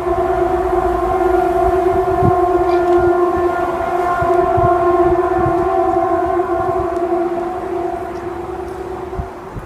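A loud, steady horn-like drone held at one pitch for about nine seconds, then cutting off near the end, over a low rumble. This is one of the unexplained 'strange sky noise' recordings.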